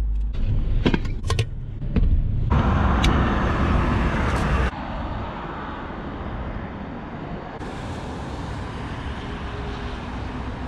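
Steady road and car noise, with a few sharp clicks near the start and the noise changing abruptly in level several times.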